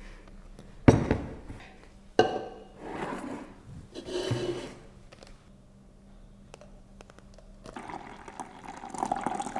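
Two sharp clunks as a mixer-grinder jar is handled, then thick coconut milk pouring steadily out of the jar.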